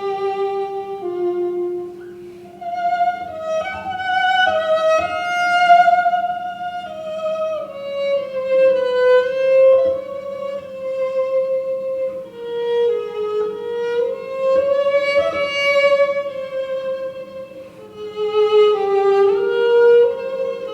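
Violin playing a slow, singing melody of long held notes that glide from one to the next.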